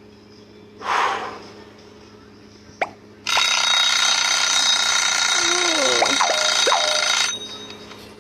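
An alarm clock rings steadily for about four seconds, then cuts off abruptly. A short breathy rush comes about a second in, and a click comes just before the ringing starts.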